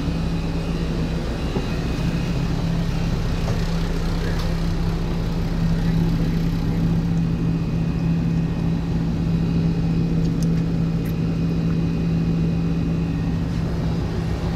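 Sea Ray motor yacht's engines running steadily with a constant low drone.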